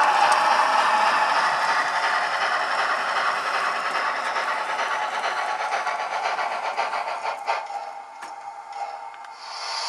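Model train (a model of Southern Pacific 4436) running along the layout's track, its wheels clattering and rattling over a steady motor whine. It grows quieter in the last two seconds.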